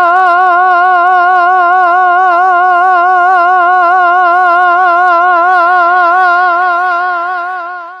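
A single voice holding one long sung note with a strong, even vibrato, fading out near the end.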